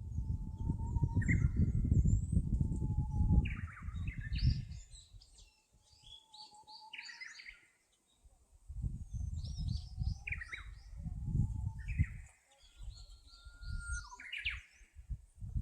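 Several birds calling and singing in woodland, short chirps and trills all through. Bouts of low rumble, loudest in the first four seconds or so and again from about nine to twelve seconds in.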